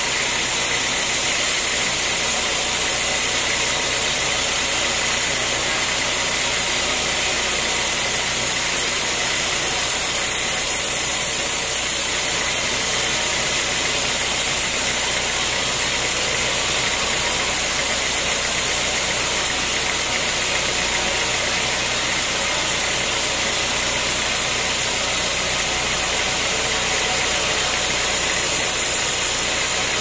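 A band sawmill running steadily, its blade ripping lengthwise through a very hard, heavy acacia log.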